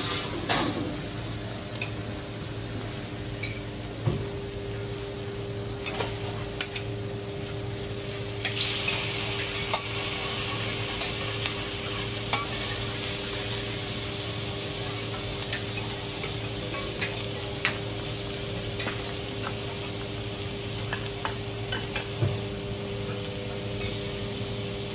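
Food sizzling on a teppanyaki griddle, with metal spatulas tapping and scraping on the steel plate, over a steady low hum. The sizzle grows louder about eight and a half seconds in.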